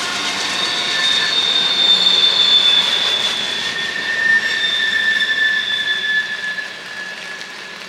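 Passing train with its wheels squealing in long, steady high-pitched tones over the rumble of the cars. The sound fades near the end.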